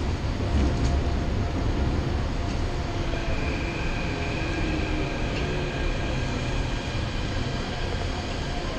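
Running noise of a moving passenger train heard from inside the carriage: a steady low rumble of wheels on the rails. A thin high tone joins it about three seconds in and fades a couple of seconds later.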